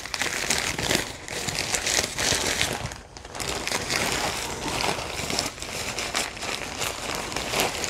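Paper and plastic wrapping crinkling and rustling as it is pulled open by hand, easing briefly about three seconds in.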